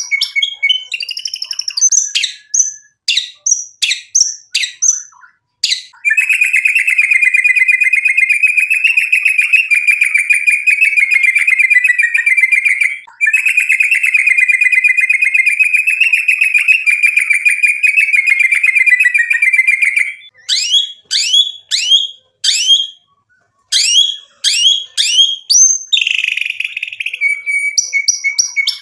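Male white-rumped shama (murai batu) singing loudly: a run of sharp, down-slurred whistled notes, then two long rapid trills of about seven seconds each with a brief break between, then more separate sharp notes near the end.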